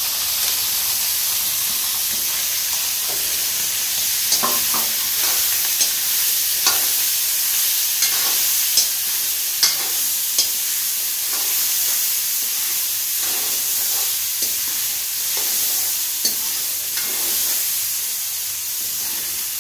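Boiled vegetables sizzling in hot oil in a metal kadhai, stirred with a spoon that knocks and scrapes against the pan at scattered moments over a steady frying hiss.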